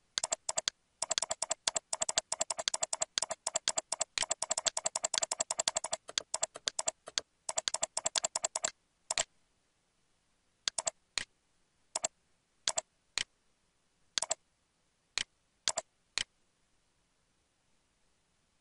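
Clicking sounds from a computer mouse being clicked. They come in a rapid string, many clicks a second, for about nine seconds, then slow to single clicks and pairs about every half second to a second, stopping a couple of seconds before the end.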